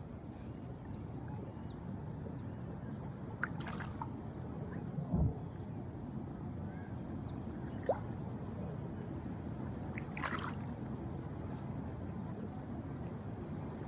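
Shallow water sloshing and swirling around the legs of a person wading, a steady low rushing. A faint high ticking about twice a second runs over it, with a soft low thump about five seconds in.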